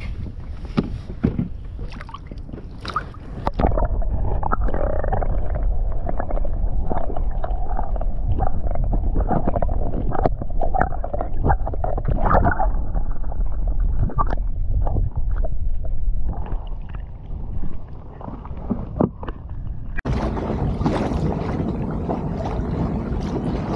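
Water heard underwater: a muffled low rumble and gurgling with scattered clicks, from about 4 s until about 20 s in. Before and after it, open-air wind and water noise around a small inflatable boat.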